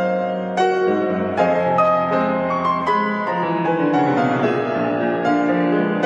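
Piano accompaniment playing on its own, a flowing line of struck notes with no flugelhorn over it.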